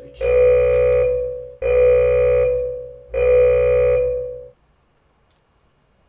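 Interval timer's buzzer sounding three long buzzes about a second and a half apart, after the tail of an earlier one. Each buzz is a steady, harsh tone. It signals the end of a timed interval.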